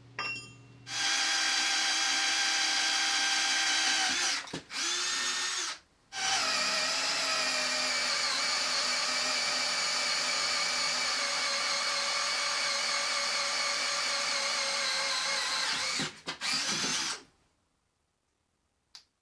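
Triton T20 cordless drill boring bolt holes through steel, its motor whining steadily under load. It stops briefly about four and a half and six seconds in, and cuts off about seventeen seconds in.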